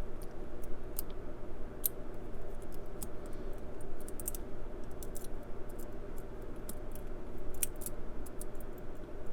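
Light, irregular metallic clicks and scrapes of a lock pick and tension wrench working the pins inside a Brinks 50mm padlock's keyway, over a steady background hum.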